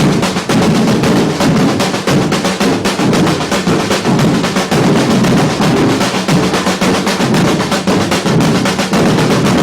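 Afro-Brazilian percussion ensemble drumming a steady, dense groove of rapid, closely spaced strokes.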